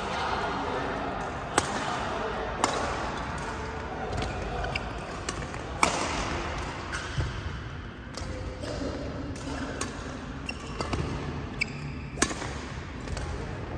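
Badminton rally: rackets striking the shuttlecock with sharp cracks every one to few seconds, the loudest about a second and a half in, at about six seconds and near the end, with a couple of short high squeaks from court shoes in between. The hits ring slightly in the large hall.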